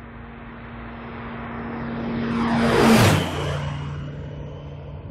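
JMB VL3 light aircraft making a low pass down the runway: its engine and propeller drone grows louder, peaks with a rush about three seconds in as it goes by, then drops in pitch and fades away.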